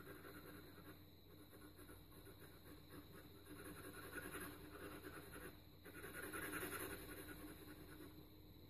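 Faint scratching of an HB graphite pencil shading on paper in quick back-and-forth strokes, building up the dark tone. It comes in two louder spells with a short pause between them.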